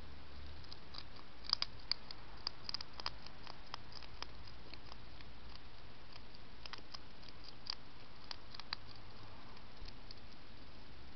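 Irregular sharp clicks and crackles of a hedgehog crunching food inside a feeding station, in two busy spells about a second and a half in and again past the middle, over a steady hiss.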